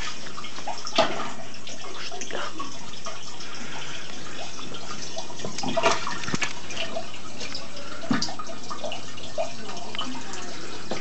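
Water running steadily in a fish tank, with a few sharper splashes or knocks about one, six and eight seconds in.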